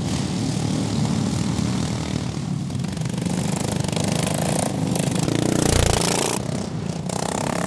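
Racing ride-on lawnmowers' small engines buzzing at high revs as several mowers race around a dirt track, with one passing close and loudest just before six seconds in.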